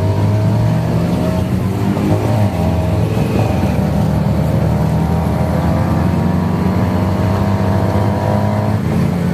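Tuk-tuk engine running as the tuk-tuk drives along, heard from its open passenger cab, the engine pitch slowly rising and falling with speed and shifting about two and a half seconds in.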